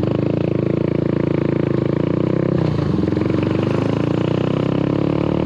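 Motorbike engine running steadily while riding, its note shifting briefly a little past halfway.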